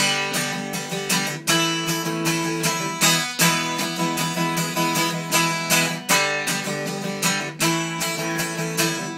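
Acoustic guitar strumming chords in a steady rhythm, a few strokes a second, with the chords ringing between strokes.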